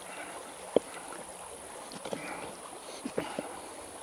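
Shallow river flowing over stones. About a second in there is a sharp click of stone on stone, and near the end a few lighter knocks, as a stone is set on top of a balanced stack.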